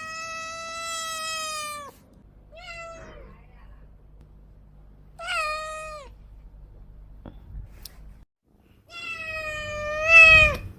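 A cat meowing four times: a long drawn-out meow, two shorter ones, then a final long meow that is the loudest.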